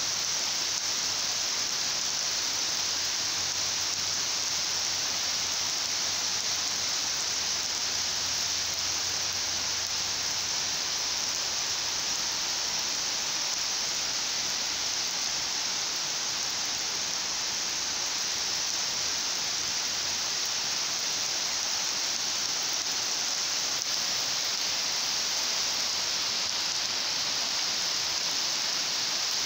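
Heavy rain pouring down steadily on trees and muddy ground, a constant even hiss.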